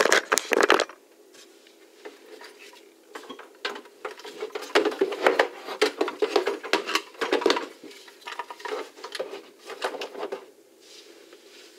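Hard objects clattering and knocking as things are moved about in the cabinet under a sink, loudest in the first second and again from about four to eight seconds in.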